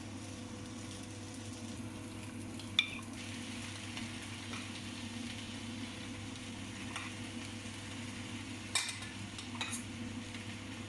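Kottu roti frying on a flat griddle: a steady sizzle over a constant low hum, with one sharp metal clink about three seconds in and two more near the end.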